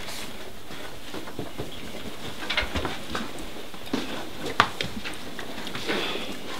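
Small objects handled on a wooden table: faint rustling with a few light clicks and taps, the sharpest about four and a half seconds in, over a steady hiss.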